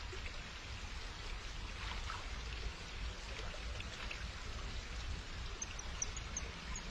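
Steady rush of running water over a low rumble, with a quick run of short high chirps near the end.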